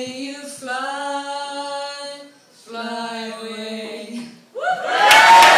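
Women singing the long held closing notes of a song in two phrases. Near the end the audience breaks into a cheer and loud applause.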